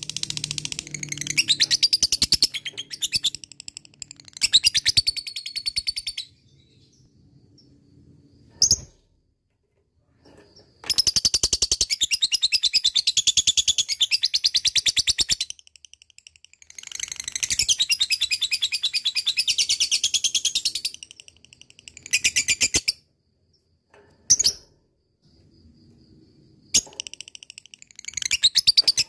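Lovebird ngekek: a long, fast, high-pitched chattering trill, in bursts. Short bursts come in the first few seconds, two long runs of about four to five seconds each come near the middle, and a few short bursts follow with pauses in between.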